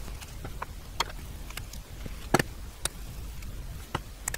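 Scattered light clicks and knocks of an old electric motor's metal housing being picked up and handled with a screwdriver, about five in all, the loudest a little past two seconds in.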